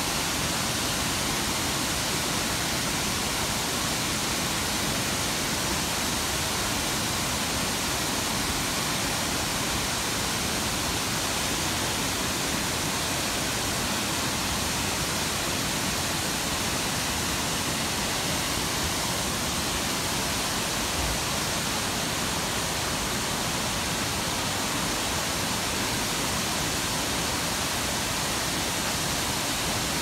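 Shifen Waterfall, a wide curtain of water pouring over a rock ledge into its plunge pool, giving a steady, unbroken rush of falling water.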